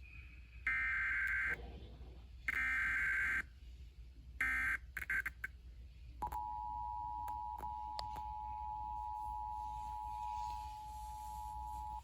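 Emergency Alert System SAME header: three loud, buzzing digital data bursts, each about a second long or less. About two seconds later a steady EAS attention tone of two close pitches begins and holds, announcing the warning that follows.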